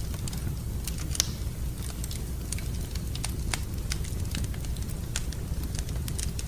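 Wood fire burning in a fireplace: irregular sharp crackles and pops over a steady low rumble, with one louder pop about a second in.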